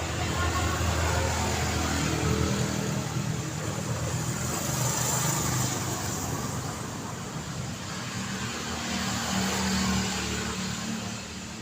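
City street traffic: cars passing with engine rumble and tyre noise, swelling louder in the first couple of seconds and again near the end.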